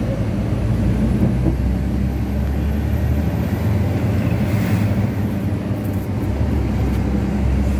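Truck engine running steadily under way, heard from inside the cab as a continuous low drone with road noise.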